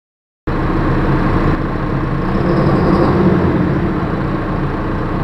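Tractor diesel engine running steadily at idle, cutting in abruptly about half a second in. The engine is running for a cylinder performance test, in which power to the injectors is cut one at a time.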